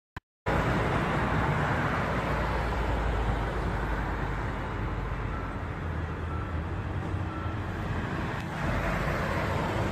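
Street traffic: cars driving past on a city road, a steady rush of engine and tyre noise. Three faint short beeps come about a second apart midway.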